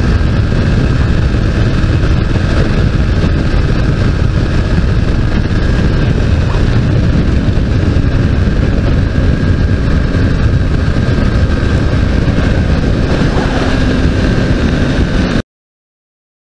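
Modenas Ninja 250 motorcycle riding at highway speed: steady engine sound under heavy wind rush on the microphone. The sound cuts off suddenly near the end.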